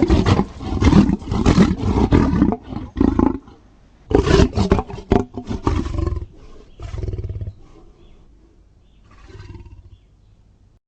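Gorilla roaring, a sound effect of the kind used for film gorillas. A long loud bout of roars lasts about three seconds, and after a brief pause comes a second burst of about two seconds. A shorter call follows, then a faint one near the end.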